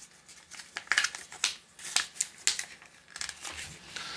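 Short, irregular scrapes and crinkles of small plastic doorbell parts and their packaging being handled, about a dozen brief rasps spread unevenly through the moment.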